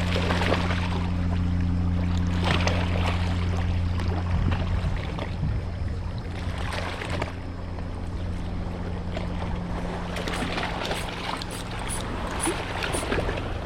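A boat's engine running with a steady low hum that eases off about four seconds in, with water splashing against the hull several times.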